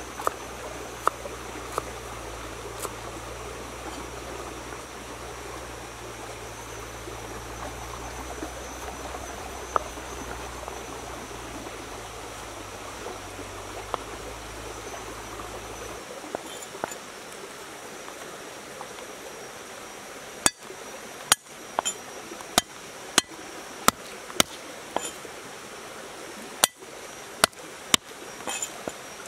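A river stream runs steadily, with a few faint knife cuts through water spinach stems. From about two-thirds of the way in, a knife chops on a wooden board: a dozen sharp knocks, irregular, about one or two a second.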